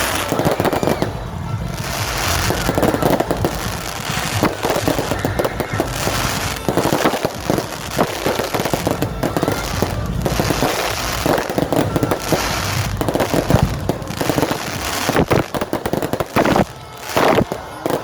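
Aerial fireworks going off in a rapid, continuous barrage of bangs and crackling, with a run of louder bangs near the end.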